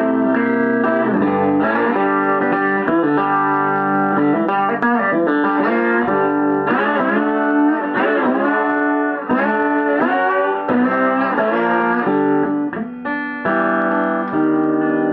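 Stratocaster-style electric guitar improvising a blues lead: quick runs of single notes and chords, with several bent notes whose pitch slides up and down.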